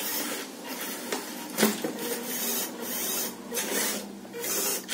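Electric motor and gears of a radio-controlled scale model IFA W50L truck whirring, rising and falling with the throttle as it climbs over a cardboard box. There is a sharp knock about one and a half seconds in.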